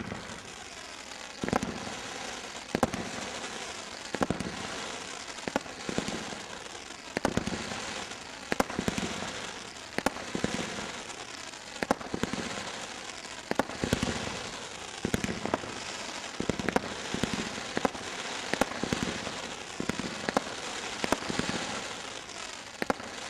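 Crazy Crown multi-shot firework cake firing gold crackling shots: a sharp thump roughly every second and a half over a dense, continuous crackle.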